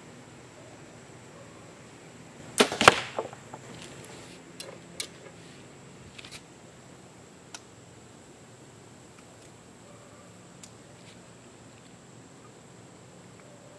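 A compound bow shot about three seconds in: a sharp crack of the string and limbs on release, then a second crack a fraction of a second later as the arrow strikes the foam 3D target. A few light clicks follow as the next arrow is nocked.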